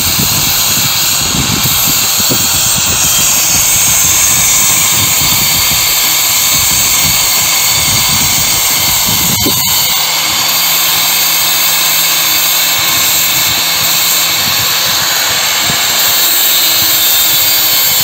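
Power tool cutting and grinding stone, a loud steady hiss and whine, with a brief break about halfway through, after which a steady low hum runs under it.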